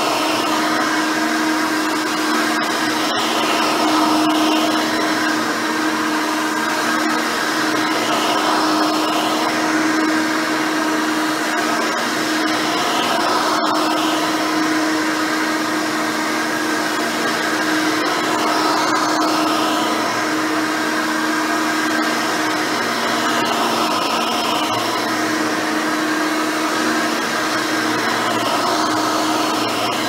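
Hoover Elite 600 upright vacuum cleaner, with its 6-amp motor, running with a steady hum as it is pushed back and forth over carpet. There are two brief clicks, about three seconds in and near the middle.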